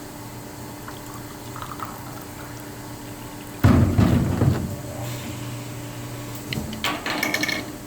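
Water poured from a gallon bottle into a small beaker: a sudden splashing pour a little past halfway that tails off after about a second, followed by light clinks and handling clicks near the end, over a steady hum.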